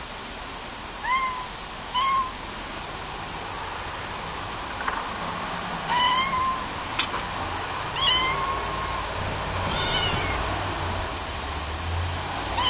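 Cat meowing about five times, short high meows at uneven gaps, the later ones longer and drawn out, over a steady hiss. A sharp click about seven seconds in.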